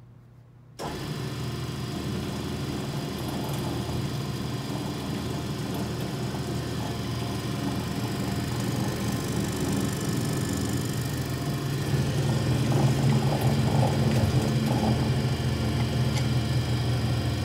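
Clausing Startrite V900H vertical bandsaw running, a steady mechanical hum from its 3 hp motor and variable-speed blade drive that starts abruptly just under a second in. It grows louder about twelve seconds in, as the blade speed is turned up on the variable-speed dial.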